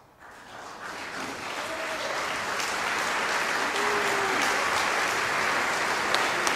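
Concert-hall audience applause breaking out at the end of a symphony, swelling over the first two seconds or so into full, steady clapping.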